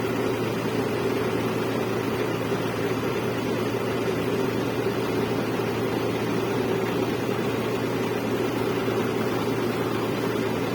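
A machine's engine running steadily at a constant speed, a low even drone.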